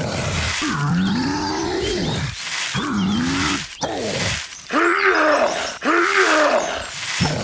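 A deep, straining groan-and-growl vocal effect, repeated about five times in a row, each one dipping and rising in pitch like a monster heaving with effort.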